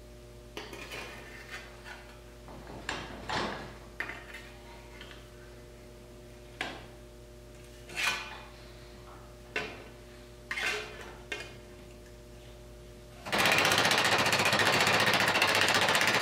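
A sheet-steel patch being bent in a bench vise: scattered clinks and knocks as the steel is set and the vise tightened, then near the end a fast, steady run of hammer blows on the steel as the bend is formed over the vise jaws.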